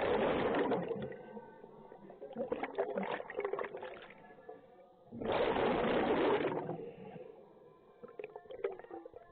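A scuba diver breathing through a regulator, heard underwater: a smooth hissing inhalation about a second long at the start and again about 5 seconds in, each followed by a crackly, burbling stream of exhaled bubbles.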